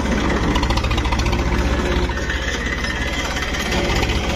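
Tractor diesel engine running steadily with an even low throb, a little quieter from about two seconds in.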